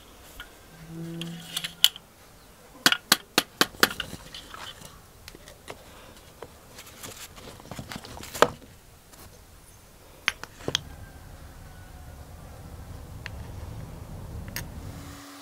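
Sharp metallic clicks from steel binder clips being handled on a metal stencil frame: a quick run of about six clicks, then a single louder knock about eight seconds in, with a few scattered clicks after it.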